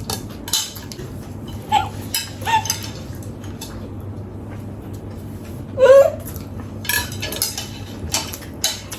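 Eating utensils clinking and scraping against plates of noodles in scattered, irregular clicks. A short vocal sound comes about six seconds in.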